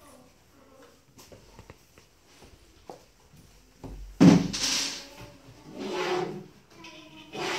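Wooden bed-frame panels being handled and fitted: a few light clicks, then a loud knock about four seconds in, followed by scraping as a panel shifts against the frame.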